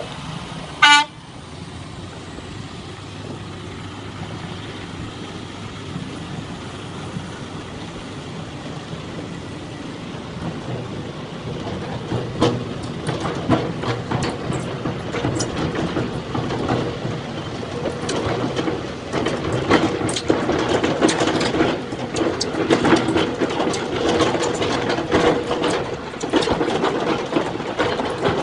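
A short horn toot about a second in, then steady heavy-machine noise. Clanking and rattling set in about halfway through and grow louder toward the end.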